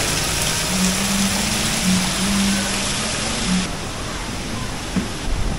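Steady rush of splashing water from a courtyard water feature falling into a pond, with a low hum that breaks off and resumes. The rush thins out suddenly about three and a half seconds in.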